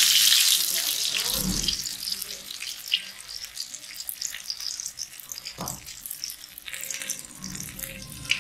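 Batter-coated chicken pinwheel deep-frying in hot oil in a kadai: a loud sizzling hiss right after it goes in, settling after about two seconds into quieter crackling and popping.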